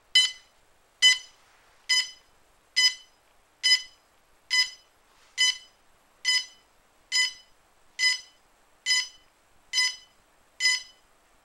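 DJI Phantom 2 Vision+ quadcopter beeping right after being powered on: a short, high beep about once a second, repeating evenly about thirteen times.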